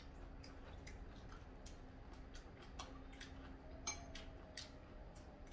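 Quiet eating at the table: scattered light clicks of metal chopsticks against dishes and food, several a second, over a faint steady hum.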